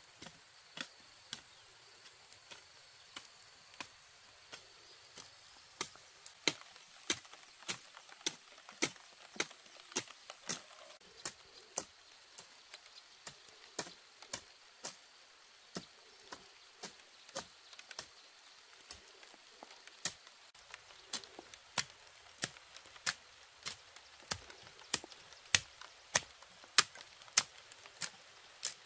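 Steady chopping: a blade striking over and over in a regular rhythm of one to two strokes a second, the strokes getting louder near the end.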